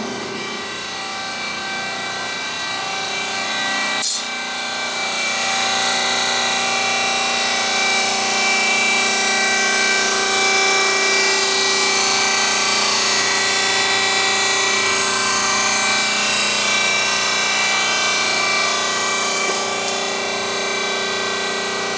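DoAll TF-14 metal-cutting band saw running, its blade sawing through rectangular steel tube with a steady whine and rasp. A single sharp clack about four seconds in.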